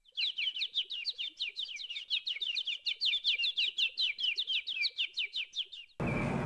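A bird chirping in a fast, even run of short falling chirps, about five a second, over a clean silent background. The chirping stops abruptly about six seconds in, and a steady outdoor background hiss takes over.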